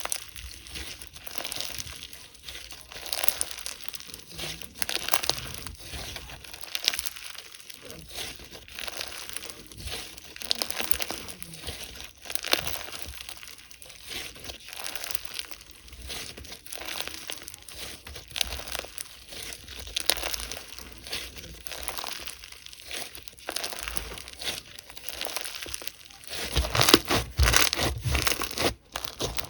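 Hands squishing and stretching slime, a dense run of small irregular clicks and pops, louder for a couple of seconds near the end.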